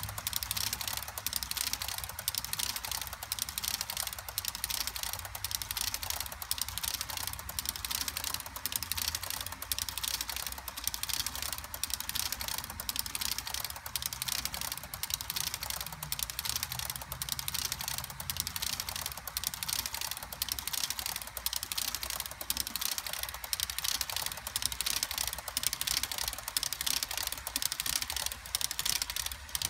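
Metal wheels of HO scale model tank cars clicking rapidly and unevenly over rail joints and a turnout as a long train rolls past, over a low steady hum.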